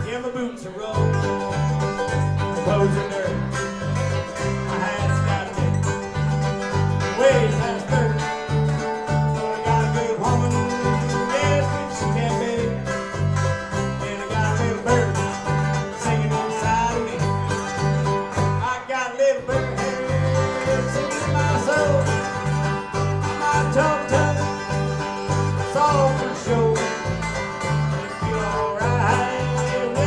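Live bluegrass-country band playing an instrumental passage: banjo and guitars picking over a steady electric bass line, with harmonica bending notes on top. The band drops out for a beat about two-thirds of the way through, then comes back in.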